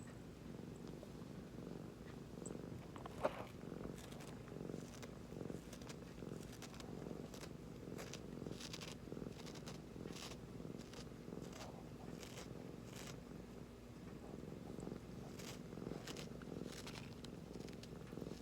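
A domestic cat purring steadily, the rumble swelling and easing in regular breath cycles, with faint rustles over it and one sharp click about three seconds in.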